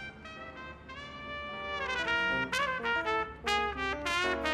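Trumpet playing a melody of changing notes, some of them bent, quieter at first and louder from about two seconds in.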